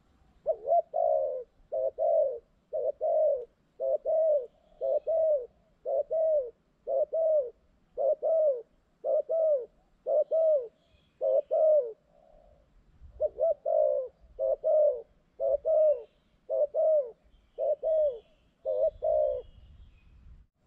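Spotted dove cooing: a run of about eighteen short, two-part coos at roughly one a second, with a brief break about twelve seconds in.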